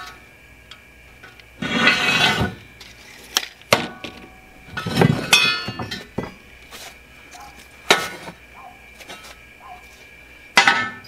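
Pieces of scrap steel tubing scraping and clanking as they are picked over, lifted and set down on the saw bench: a longer scrape, a knock with a short metallic ring, and a few sharp clicks spread out.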